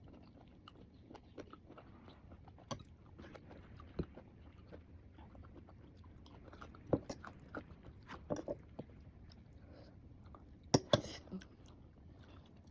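A person biting and chewing mango with shrimp paste close to the microphone: irregular crunches and mouth clicks, with two louder bites near the end.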